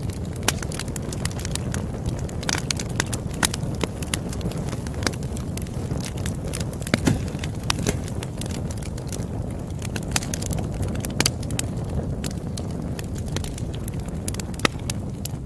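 Campfire burning with a steady low roar and frequent sharp, irregular crackles and pops of burning wood.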